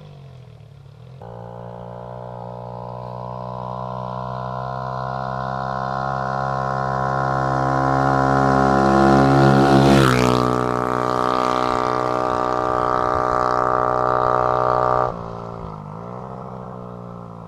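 BFD Ares 125cc motorcycle engine approaching at steady throttle, growing steadily louder, then passing close by about ten seconds in with a drop in pitch before moving away. The sound drops off sharply about fifteen seconds in.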